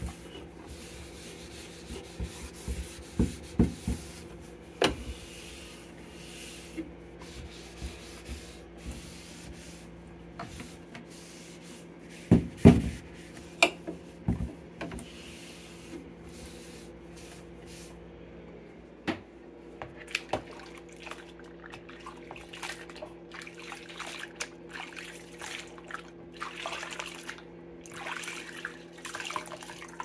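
A damp cloth rubbing and wiping the white plastic inside of a refrigerator, with a few sharp knocks of plastic parts being bumped, the loudest about twelve to thirteen seconds in. A steady low hum runs underneath.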